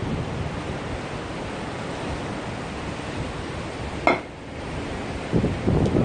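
Wind buffeting the microphone over a steady wash of sea surf. A short sharp sound about four seconds in, then louder gusts of wind noise near the end.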